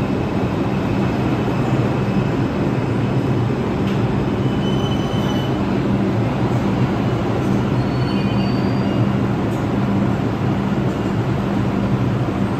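R142 subway train running into the station and slowing to a stop: a steady loud rumble of wheels and propulsion with a low hum. A few short, faint high-pitched squeals come about halfway through and again a little later.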